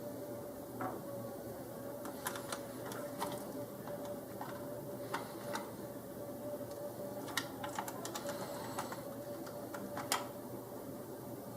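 Irregular small clicks and taps of hand tools and metal parts as M4 lock nuts are fitted and tightened onto the RC car's wing-mount bolts, over a steady hum.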